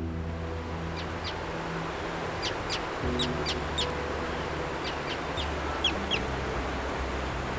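Steady rushing of a large waterfall, with birds giving short, sharp, descending calls again and again, several in quick succession through the middle.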